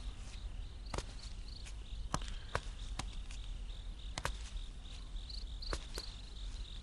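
Crickets chirping steadily in a pulsing high trill, over a low background hum. Sharp, scattered clicks come every second or so.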